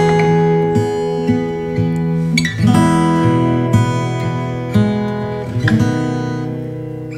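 Background instrumental music: an acoustic guitar picking and strumming chords.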